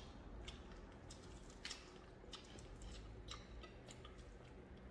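Faint chewing of fried chicken, with scattered small clicks from mouth and fingers.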